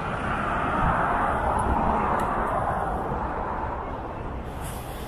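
A vehicle passing on a city street, its tyre and engine noise swelling about a second in and slowly fading away.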